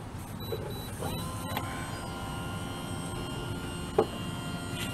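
A motor whining steadily with several even tones, rising briefly as it starts about a second in, over a low rumble, with a single sharp knock about four seconds in.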